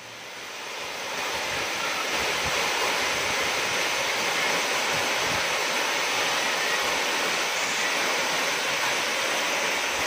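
Waterfall plunging into a rock pool: a steady rush of falling water that fades in over the first second or so.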